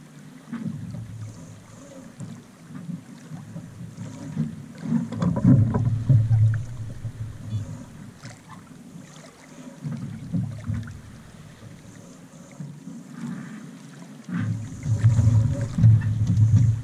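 Wind buffeting the microphone aboard a sailing yacht under spinnaker, a low rumble that swells in gusts about five seconds in and again near the end, with a few faint knocks of gear.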